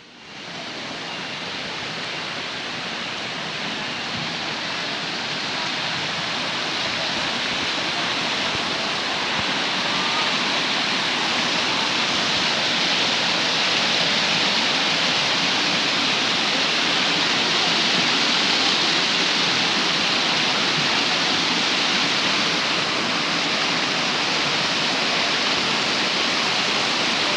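Waterfall's steady rush of falling water, growing louder over the first several seconds and then holding even.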